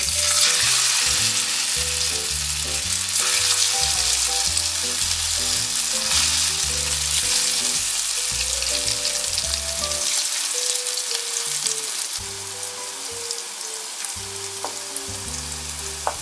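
Diamond-shaped chana dal lentil cakes (dhoka) frying in hot mustard oil in a kadai, sizzling loudly as they go into the oil; the sizzle eases a little about ten seconds in. Background music plays underneath.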